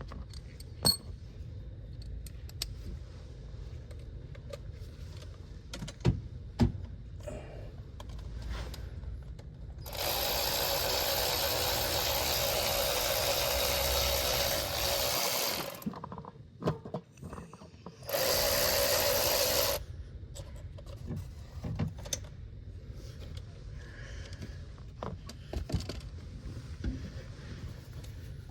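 A power tool runs twice: first for about five and a half seconds, then for about two seconds, at a steady speed. Scattered clicks and knocks of tool handling sound over a low steady hum.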